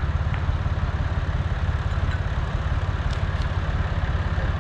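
An engine or motor running steadily: a low, fast-pulsing drone that does not change, with a few faint clicks about three seconds in.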